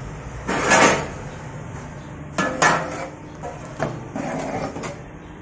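A steel bowl scooping batter from a large aluminium pot and knocking against the pot and a steel tray. There is a loud scrape about half a second in, then a few sharp metallic clinks.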